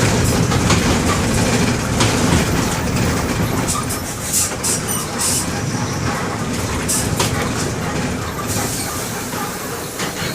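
Mercedes-Benz OF-1721 bus's OM-924 LA four-cylinder diesel running with the bus under way, heard from inside the bus, with scattered clicks and rattles. The deep engine sound eases off in the second half.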